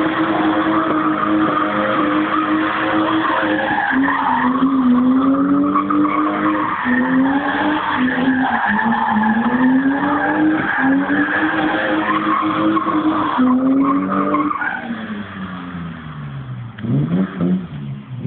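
Car engine held at high revs while the car spins donuts, its driven tyres spinning and skidding on the wet ground. The revs sag and climb again every couple of seconds. About fifteen seconds in they fall away, and there are two quick blips of the throttle near the end.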